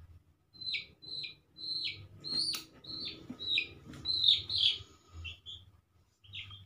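Young chicken peeping over and over while it is held and handled: a series of short, falling chirps, about two a second. A couple of faint clicks are heard among them.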